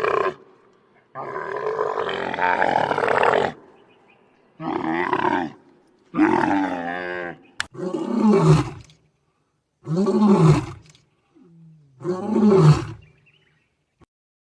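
A big cat roaring in a bout of separate calls: two long calls first, then shorter calls about every two seconds that fall in pitch at their ends.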